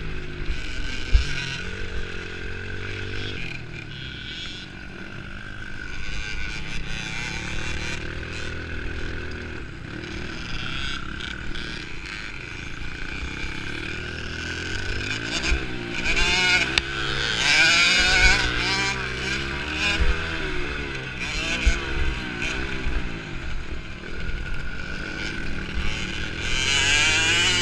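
65cc two-stroke motocross bike engine revving up and down as it is ridden around a dirt track, heard close up from a camera mounted on the bike. A sharp knock about a second in.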